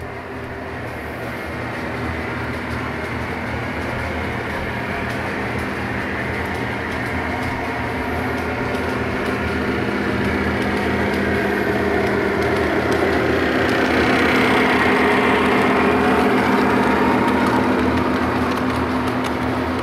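Lionel O-gauge model train, a diesel locomotive pulling tank cars, running on three-rail track: a steady low hum and wheel rumble that grows louder as the train comes close and passes, loudest about three-quarters of the way through, then eases slightly.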